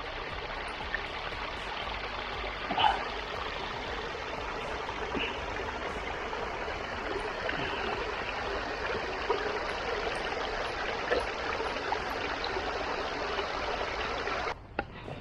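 A small forest rivulet trickling and splashing over moss, roots and leaf litter: a steady rush of running water, with a few small splashes, that stops abruptly near the end.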